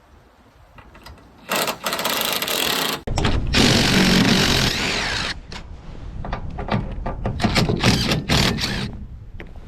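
Cordless power driver running bolts in. It runs in two long bursts starting about a second and a half in, then gives shorter, irregular bursts and clatter.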